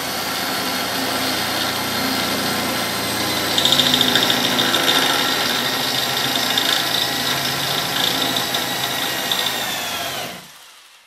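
Electric drill boring a single hole through sheet metal. The motor runs with a steady whine, and the bit bites in harder and louder a few seconds in, grinding through the metal. Near the end the motor is switched off and winds down.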